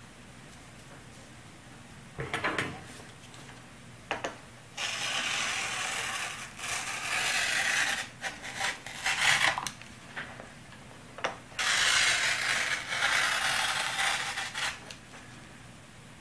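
Rotary pizza-wheel cutter rolling through carbon fiber cloth on an MDF board: a couple of short scrapes, then two long stretches of cutting noise a few seconds each.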